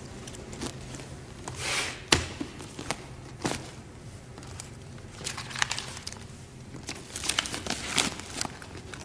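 Scattered clicks, light knocks and rustling over a steady low hum, the sharpest knock coming about two seconds in and a cluster of clicks near the end.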